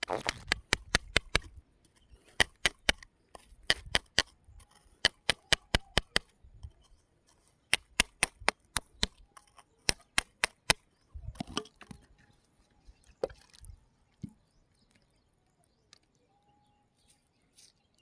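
Quick runs of sharp clicks, about five a second, in short groups, thinning to a few single clicks after about eleven seconds.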